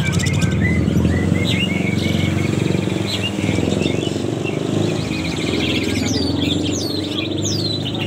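Several caged songbirds chirping and singing at once, with quick chirps and trills throughout and a run of downward-sweeping whistles in the second half. A steady low rumble runs underneath.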